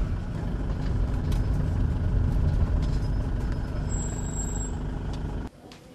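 Car driving, its engine and road rumble heard from inside the cabin as a steady low drone. It cuts off suddenly about five and a half seconds in, leaving a quiet room.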